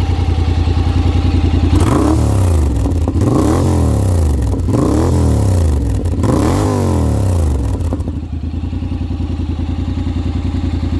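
Honda X-ADV 750's parallel-twin engine breathing through an Akrapovic full-system exhaust without carbon tips, with 60,000 km on it. It idles, is revved four times in quick blips, each rising and falling, then settles back to idle.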